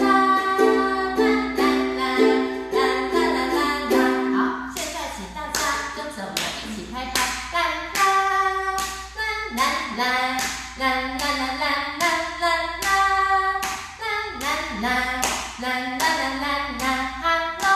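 Ukulele strummed in a steady rhythm with hands clapping along. About four seconds in, the held chords give way to sharper strokes about twice a second, and a voice sings along without words.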